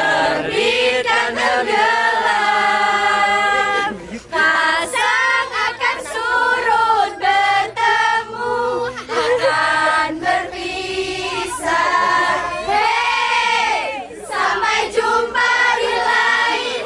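A group of teenagers singing a song together, held notes in phrases with short breaks between them.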